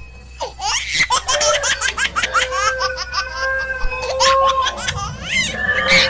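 Rapid, repeated laughter over background music.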